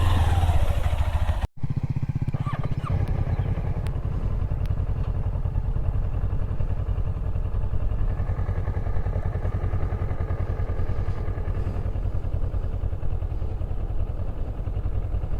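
Motorcycle engine running steadily at a low, even pace with no revving, broken by a brief gap about a second and a half in.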